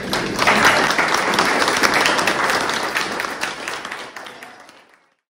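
Audience applauding, dense and loud, dying away after about four seconds and cut off just before the end.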